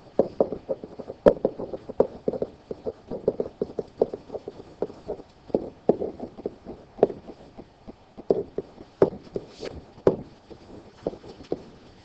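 Pen stylus tapping and knocking on a digital writing surface as words are handwritten: an irregular string of small, sharp knocks, several a second.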